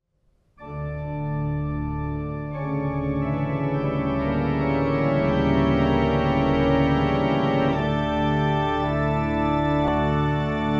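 Slow opening theme music of long held, organ-like chords that change a few times, starting about half a second in.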